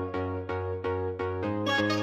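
Background music with a steady low bass and quick, evenly spaced notes above it.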